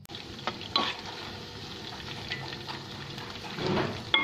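Gram-flour-battered chicken pieces deep-frying in hot oil, a steady sizzle with crackling, while a metal slotted spoon stirs and turns them. There are a few sharper clicks of the spoon against the pan, the loudest about a second in and at the very end.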